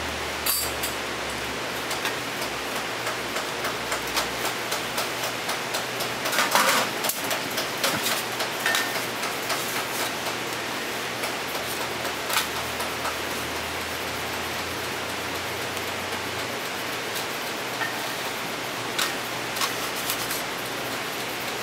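Metal scraper and tongs clicking and scraping against a steel crêpe griddle as a crêpe is folded, with a cluster of clicks about six seconds in. A steady hiss runs beneath.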